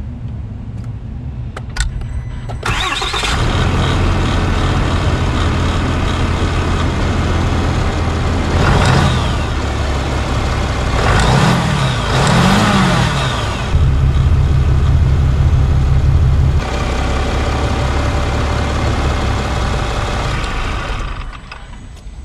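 Ram 3500's 6.7-litre Cummins inline-six turbodiesel starting, catching about three seconds in and settling to idle. It is blipped three times in quick succession, held at higher revs for about three seconds, then drops back to idle before the sound falls away near the end.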